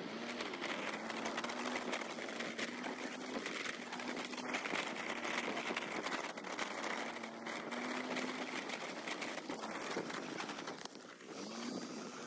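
Faint steady whirr of a small two-wheeler engine while riding, its note wavering slightly.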